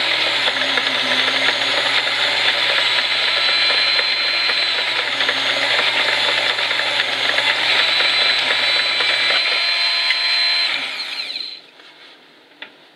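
High-speed rotary tool (die grinder) whining steadily as its bit cuts a hole into a rubber stopper spinning in a lathe, with the lathe motor running underneath. A low hum stops about nine seconds in, and the whine winds down and stops about two seconds later.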